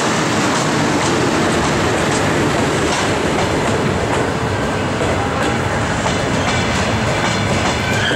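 Double-deck passenger coaches of an arriving train rolling past with a steady rumble, wheels clicking irregularly over rail joints.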